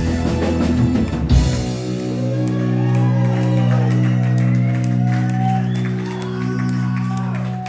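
Live rock band of electric guitar, bass, keyboard and drums playing the final bars of a song, ending on a last hit about a second and a half in, then a held chord ringing out while the audience whoops and shouts.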